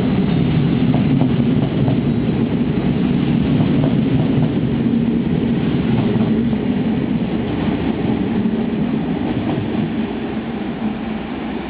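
Train of DD-AR double-deck coaches hauled by an NS 1700-class electric locomotive pulling out, its wheels rumbling steadily over the track with occasional clicks from the rail joints. The rumble eases a little toward the end as the train moves off.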